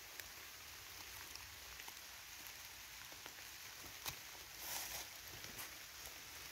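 Faint light rain pattering on the woodland leaf litter, with a sharp tick about four seconds in and a brief rustle of dry leaves shortly after as a shed deer antler is lifted from them.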